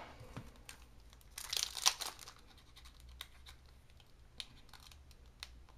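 Foil wrapper of a Magic: The Gathering booster pack crinkling as it is picked up and handled, a short cluster of crinkles about a second and a half in, then light ticks and rustles.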